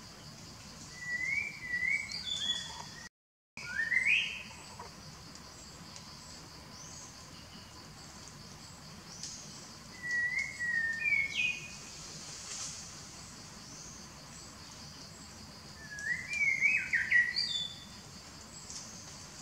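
Wild bird song: three bouts of quick chirping phrases of rising and falling notes, near the start, in the middle and near the end, over a steady high buzz. The sound cuts out completely for a split second about three seconds in.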